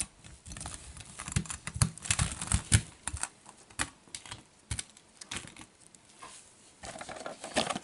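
Hot Wheels Monster Jam 1:64 diecast toy monster trucks being set down and pushed into a row on a textured mat: a scatter of light clicks and taps of metal and plastic, busiest in the first half.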